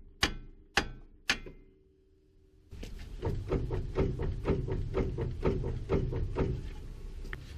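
Three sharp metal-on-metal blows about half a second apart, each ringing briefly, typical of a hammer striking steel steering parts. After a short quiet pause comes a steady run of mechanical clicks at about four a second.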